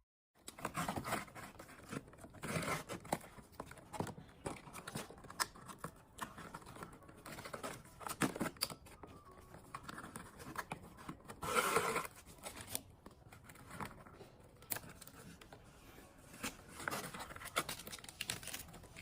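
Irregular scratching and rustling noises with short clicks, including a louder rustling burst about two-thirds of the way through.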